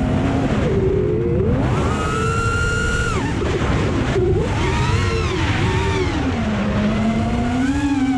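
FPV quadcopter motors and propellers whining, the pitch climbing sharply about one and a half seconds in, holding, dropping just after three seconds and then wavering up and down with the throttle, over a steady low rumble.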